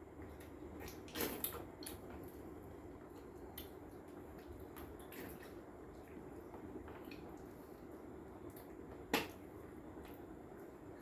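Faint wet smacking and sucking from people eating ripe mangoes by hand, with a couple of short clicks about a second in and one sharp click near the end.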